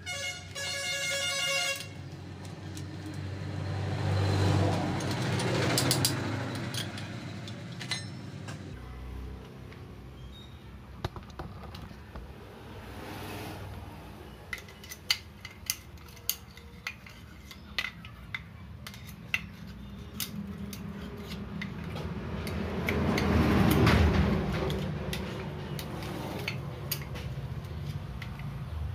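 A short vehicle horn toot right at the start, and two vehicles passing, a few seconds in and again near the end. Through the middle, a run of sharp metallic clicks as clutch assembly parts are handled.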